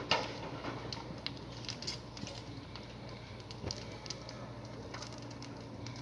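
Apartment balcony fire crackling and popping: a sharp pop right at the start, then scattered small snaps and crackles.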